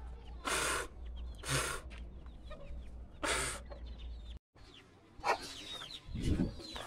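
Chickens clucking and roosters calling, with three short noisy bursts in the first few seconds.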